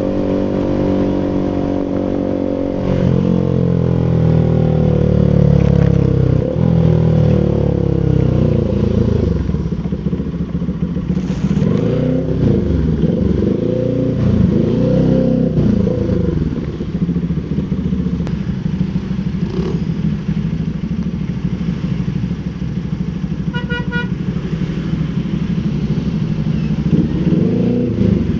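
Rouser RS200 motorcycle's single-cylinder engine running through an aftermarket SC Project full exhaust, its pitch rising and falling through the first half, then holding a steadier, lower note before rising again near the end. A brief beep sounds once about three-quarters of the way through.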